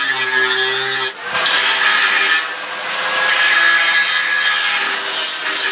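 Electric drill boring into metal: the motor hums for about a second, then the bit bites with a loud, steady rasping that eases briefly and builds again.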